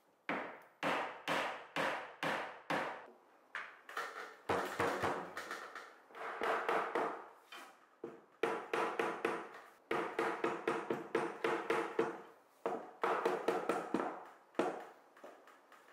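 Steel-headed hammer tapping a wooden block held against a wooden cabinet frame. It starts with single knocks about two a second, then moves to quicker flurries of light taps with a ringing tone under them.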